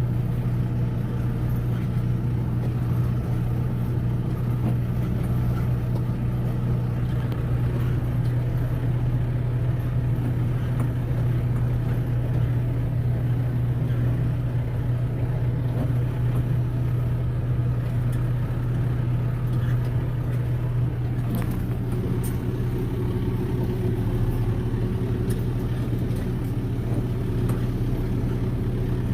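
Kubota M6040 tractor's diesel engine running steadily under light load as it pushes a round bale along with the loader, its note shifting slightly about twenty seconds in.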